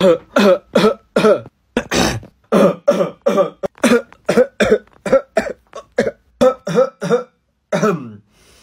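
A young man's rapid, repeated deliberate coughs and throat-clearing, about three a second, with one harsher cough about two seconds in. The coughing stops shortly before the end.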